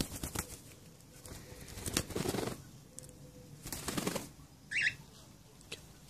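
Cockatiel wings flapping in short flurries: one at the start, another about two seconds in, and a third about four seconds in. A brief high-pitched sound comes just before the end.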